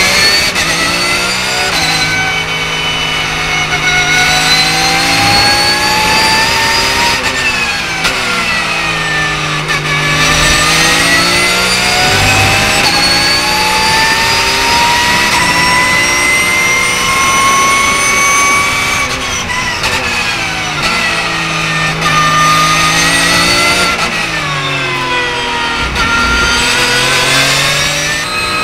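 Porsche 911 GT3 Cup (991.2) race car's flat-six engine, heard from inside the cockpit, running hard on track. The pitch rises through each gear, drops sharply at the upshifts and dips deeper under braking before climbing again.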